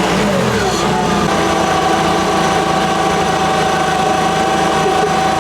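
Yale forklift's LPG engine running at idle after its new electric fuel lock-off valve lets gas through to the mixer. The pitch wavers for about the first second, then settles into a steady idle.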